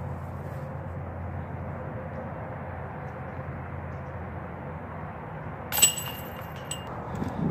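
Disc golf putt striking a metal chain basket: a sudden clang of rattling chains that rings for about a second, near the end. It sits over a steady low background rumble.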